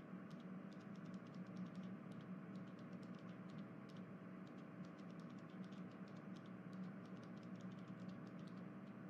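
Very quiet room tone: a faint steady hum with light, irregular clicks.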